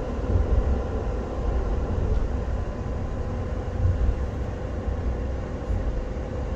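Škoda ForCity Smart Artic tram running along its line, heard from inside the passenger cabin: a steady deep rumble with a thin, steady hum tone above it.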